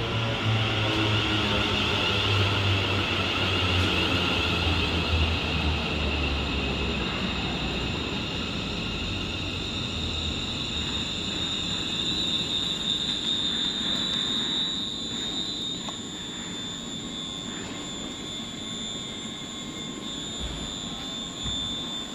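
Class 380 electric multiple unit braking to a stop at the platform, its traction motor tones stepping down in pitch over about ten seconds. It then stands with a quieter, steady high-pitched whine.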